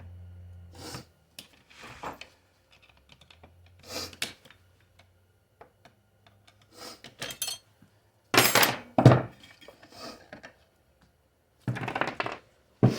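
Metal automatic-transmission parts clinking and clattering as they are handled and set down on a bench, in scattered knocks with two louder spells of rattling in the second half.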